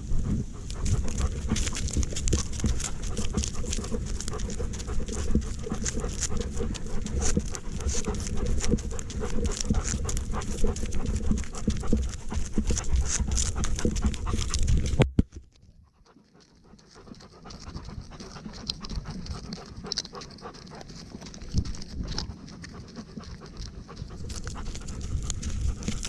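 A dog panting rapidly and close to the microphone. The panting cuts off suddenly about halfway through, and fainter, softer sounds slowly return.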